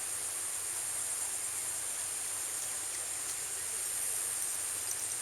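Steady high-pitched chorus of insects, an even unbroken buzz with no separate calls standing out.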